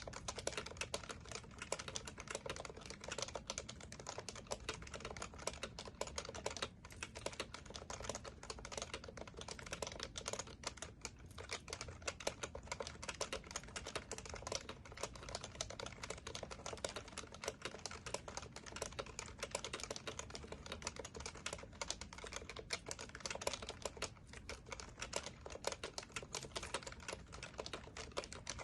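Fast, continuous typing on an HHKB Professional Classic keyboard with Topre electrostatic capacitive switches: a dense stream of key clacks with a few brief pauses.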